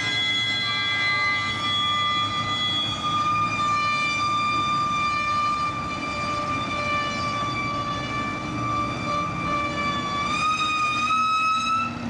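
Heavy machinery running with a steady high whine over an engine rumble, the whine rising a little in pitch near the end.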